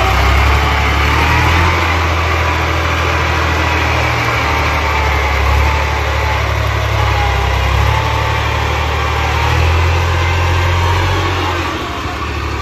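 Massey Ferguson tractor's diesel engine running under load as it pulls a trolley heaped with soil, a steady low drone with a faint wavering whine above it. The engine eases off slightly near the end.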